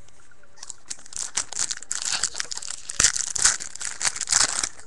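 Foil hockey card pack wrapper crinkling as it is torn open, the crackle loudest over the last couple of seconds.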